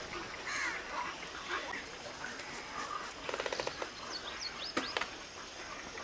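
Calls from a nesting colony of pelicans and storks: scattered chirps and squeals, a fast rattling call about three seconds in, then a few short rising whistles and a sharp click near the end.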